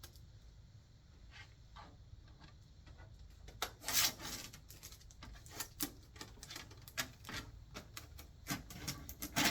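Hands handling printer cords and plastic parts: scattered clicks, taps and rustles, with a louder scrape about four seconds in.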